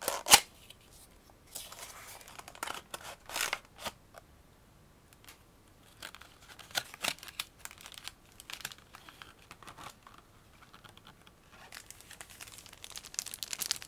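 Hands handling clear plastic blister packaging and thin plastic bags: intermittent crinkling, rustling and small clicks of the plastic, with a sharp tap at the very start.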